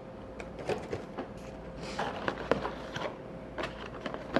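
Scattered small clicks, knocks and rustles of objects being handled close to the microphone, over a faint steady hum.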